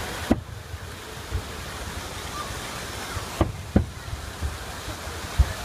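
Booms of a fireworks salute over a steady rushing of fountain water: one boom about a third of a second in, then two close together a little past three seconds, with a few fainter thuds between.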